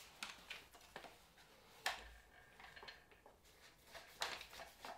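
Faint handling clicks and knocks of a rifle being seated in a plastic gun-cleaning vise and its clamps being adjusted, with a sharper knock a little under two seconds in and another about four seconds in.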